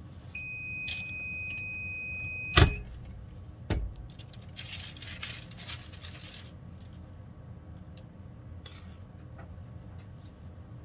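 Heat Press Nation Craft Pro heat press sounding its timer alarm, one long steady high beep of about two and a half seconds, which marks the end of the pressing time. It cuts off with a sharp knock, a second knock follows about a second later, then about two seconds of rustling.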